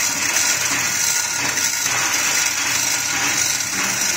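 Steady engine-room machinery noise: a constant loud hiss with a low hum beneath it.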